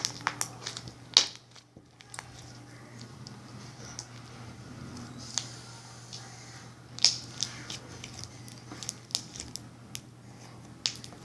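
Crunchy slime with foam beads and cut-up plastic straw pieces being squeezed and played with, giving scattered sharp crackles and pops.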